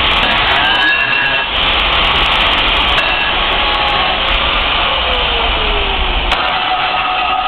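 A loud, steady rough machine noise with thin squealing tones that shift in pitch, one of them falling slowly about five seconds in.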